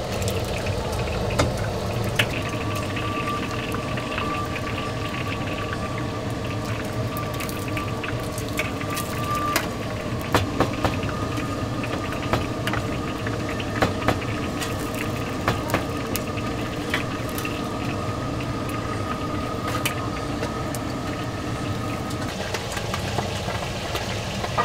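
Braised snacks deep-frying in a wok of hot oil: a steady sizzle, with metal tongs and a perforated skimmer clicking sharply against the wok again and again, over a steady low hum.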